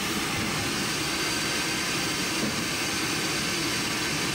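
Haas CNC machine cutting a nylon part, with synthetic coolant spraying against the inside of its door window: a steady, even hiss and wash of machine noise.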